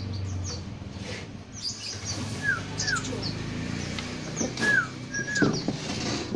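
Birds chirping: a handful of short chirps that fall quickly in pitch, a pair about two and a half seconds in and another pair near the end, with fainter higher chirps between.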